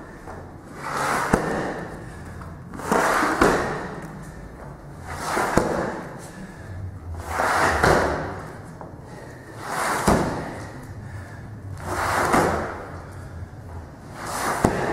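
A 20 kg sandbag dragged across rubber gym flooring in plank pull-throughs, one scraping slide about every two seconds, each with a sharp thud as the bag is set down or a hand slaps the mat.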